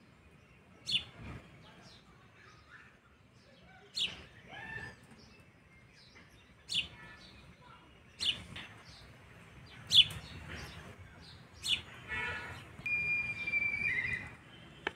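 Small birds chirping: single short, sharp chirps every couple of seconds, then a longer call with a held high note near the end.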